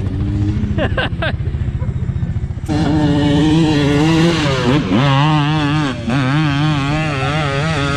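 Lifted Mazda Miata kart's engine running over rough off-road ground. It starts as a low rumble, then about a third of the way in a louder revving note comes in abruptly and keeps wavering up and down in pitch a few times a second, dipping deeper once near the middle.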